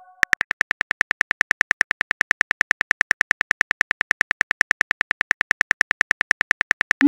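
Simulated phone-keyboard typing sound effect: rapid, evenly spaced key clicks, about eight a second, as a text message is typed out.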